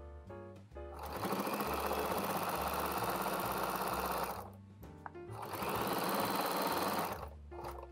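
Electric domestic sewing machine stitching through layered fabric in two steady runs, about three seconds and then about two seconds, stopping briefly in between. Background music with piano-like notes fills the pauses.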